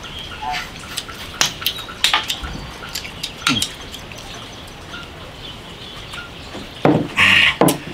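Stir-fried river snail shells and chopsticks clicking and clinking while the snails are eaten, with a louder burst of sucking sounds near the end as the meat is drawn out of the shells.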